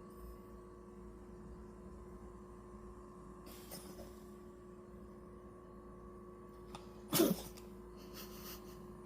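A small dog with rhinitis sneezes once, short and sharp, about seven seconds in, over a steady low hum and a few soft hissing breaths.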